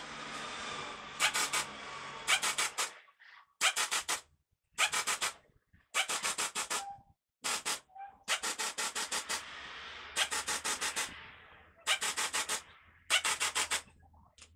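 Hand ratchet wrench clicking in about ten short bursts of rapid clicks as it is worked on the truck's wheel hub, with two longer stretches of rubbing, scraping noise between them.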